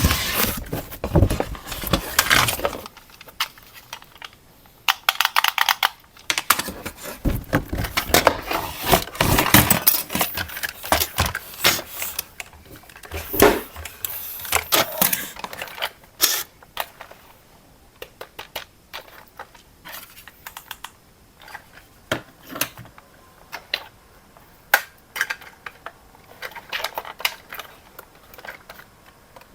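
Hard plastic clicking and clattering from toys being handled. The clicks come thick in the first half and grow sparser later.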